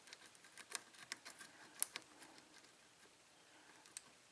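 Light metallic clicks and ticks of a lock pick and tension tool working the pins inside a 5-pin pin-tumbler cylinder lock during single-pin picking. Several clicks come in the first two seconds and one more comes near the end.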